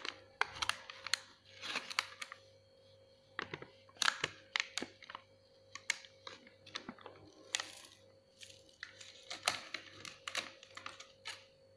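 Plastic pouch of pancake mix crinkling and crackling in irregular bursts as the powder is shaken out of it.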